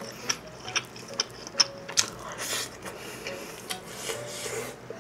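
Close-miked chewing of a mouthful of spicy stir-fried chicken: wet mouth smacks and sharp clicks at irregular intervals.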